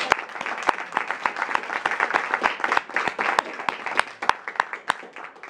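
Audience applauding, with individual hand claps audible, thinning out near the end.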